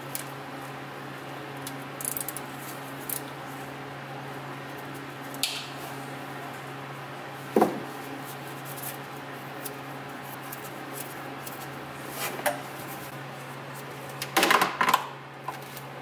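Scattered light clicks and knocks of handling over a steady low hum, then a cluster of louder knocks and scrapes near the end as a large plastic drain pan is shifted under the car.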